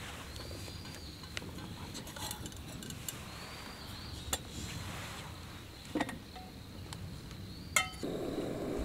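Quiet outdoor campsite ambience with a few faint clicks and light clinks. About eight seconds in, a low steady rushing sound starts.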